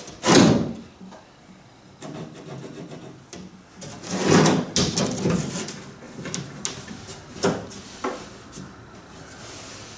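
Wood being handled on a thin plywood panel: a knock and scrape about half a second in, a longer scraping rub around four seconds, then a few lighter taps.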